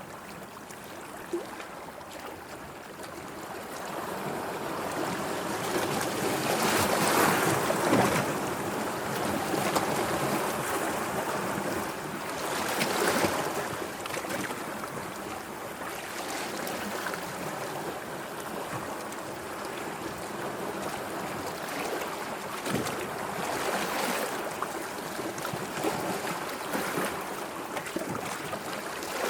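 Sea waves washing and breaking: a steady rush of water that swells into louder surges, the strongest about seven to eight seconds in and another about thirteen seconds in.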